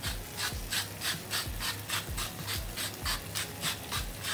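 Hand-turned salt mill grinding salt, a steady run of short rasping grinds at about three or four a second.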